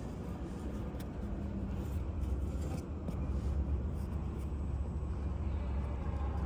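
CNC digital knife cutting machine running: a steady low hum with a few faint light ticks.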